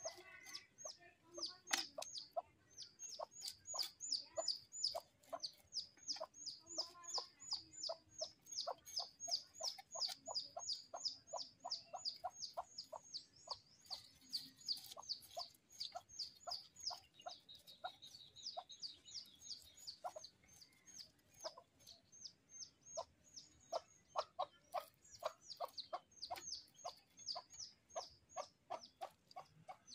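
Fish being scaled against a bonti, the curved floor-mounted blade: quick, even scraping strokes, several a second, carrying on without a break.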